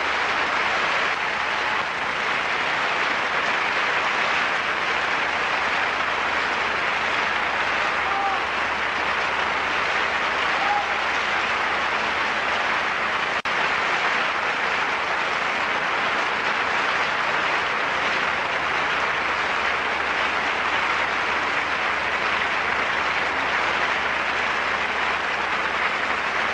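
Audience applauding steadily, cutting off abruptly at the end.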